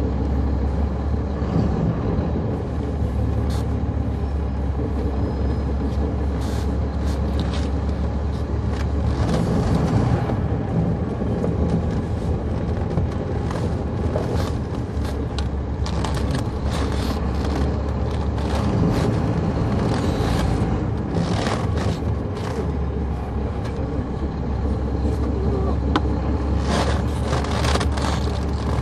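Inside a NABI 40-SFW transit bus: its Caterpillar C13 ACERT inline-six diesel running with the ZF Ecomat automatic transmission, a steady low drone whose note changes about nine seconds in and again around twenty seconds. Short knocks and rattles sound through it.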